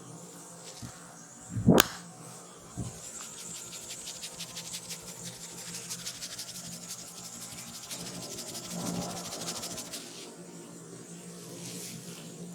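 Head massage sounds: one sharp, loud hit against the body about two seconds in, then a second, smaller one, and then several seconds of rapid, fine clicking from quick tapping or scratching on the head. Soft background music with steady low tones runs underneath.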